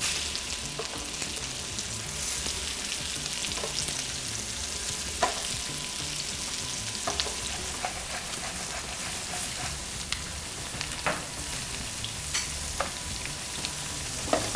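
Seasoned cobia medallions frying in hot oil in a skillet: a steady sizzle with a few sharp pops scattered through it.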